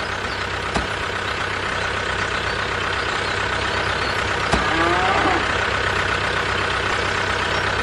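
A vehicle engine idling steadily with a constant hum, and a short wavering tone about five seconds in.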